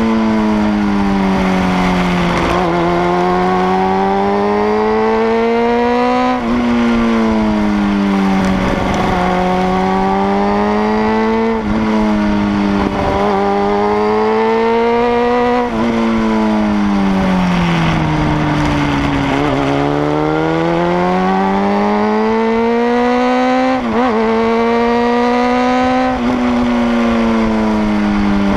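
Sport motorcycle engine at riding speed, its revs climbing and falling again and again as it is shifted and throttled through a run of bends, with several abrupt gear changes and one long drop in pitch about two-thirds through before it pulls up again. Wind noise rushes underneath.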